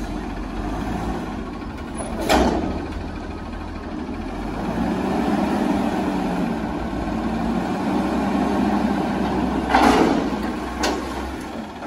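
Heil front-loader garbage truck's engine running and revving up to drive the hydraulic arms as they lift a commercial dumpster overhead. There are two sharp metal clanks, about two seconds in and a louder one near the end, as the dumpster shifts on the forks.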